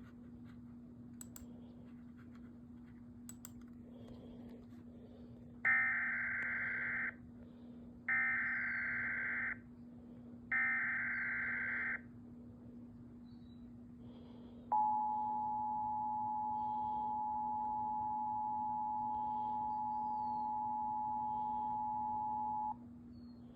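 Emergency Alert System header tones: three short bursts of screechy data noise about a second apart, then the steady two-tone attention signal held for about eight seconds, the signal that an alert message, here a tornado warning, is about to follow. A steady low hum lies underneath.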